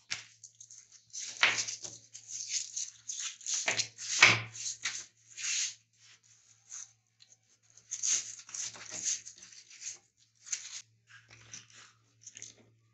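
Steel 420 roller chain rattling and clinking as it is handled and laid out on a bench, the links clattering in irregular bunches of quick metallic clicks with short pauses between.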